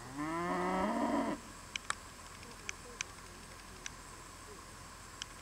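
A sheep bleating once, a loud call of about a second that rises in pitch. A few short sharp ticks follow.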